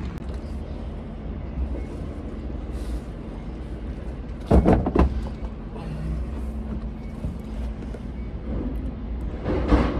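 Steady low rumble of a vehicle running, with a short loud voice-like burst about halfway through.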